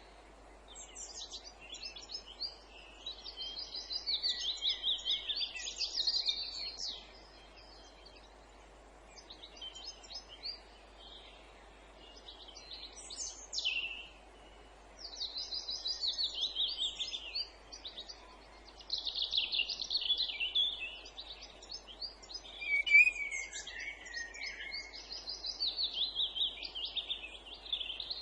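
Songbirds singing: high phrases of fast repeated notes and trills, each lasting a couple of seconds with short pauses between, over a faint steady background hiss.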